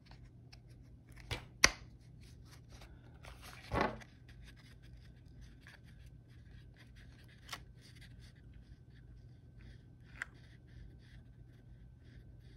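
Hard plastic clicks and knocks of an RC buggy's gearbox and chassis parts being handled and pressed together by hand. The sharpest click comes about one and a half seconds in, followed by a short rustle near four seconds and a couple of lighter clicks later.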